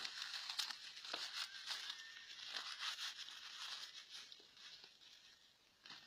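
Dry leaf litter rustling and crackling in irregular bursts as it is moved about and stepped on, dying down about five seconds in.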